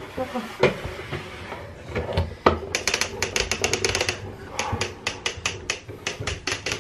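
Radio Flyer Classic Walker Wagon being pushed across a wooden floor: a couple of single knocks, then from about three seconds in a rapid run of sharp clicks and rattles, several a second, as it rolls.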